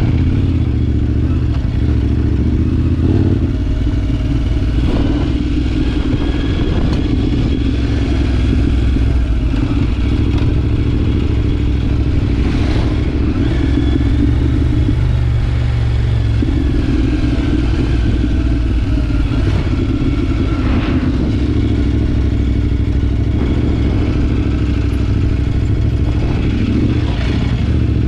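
Adventure motorcycle engine running steadily at low speed on a rocky dirt track, its note easing off briefly around the middle. Occasional sharp clatter from stones and the bike jolting over the rough surface.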